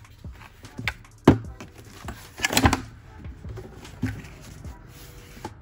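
Handling noise of the plastic Dinghy Bob masthead float being turned over in the hands: a few knocks and taps, the sharpest about a second and a quarter in, with a short cluster of clatter about two and a half seconds in.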